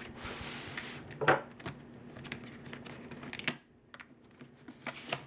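A knife blade scraping as it cuts through the tape tab on a cardboard box, then the cardboard clicking and scratching as the flaps are worked open by hand. There is a sharp knock about a second in.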